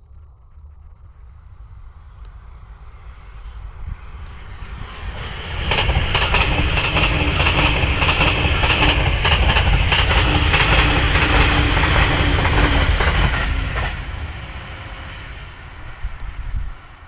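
E259 series Narita Express electric train passing at speed. The sound builds for about five seconds, stays loud for about eight seconds with a fast run of wheel clicks over the rails, then fades away.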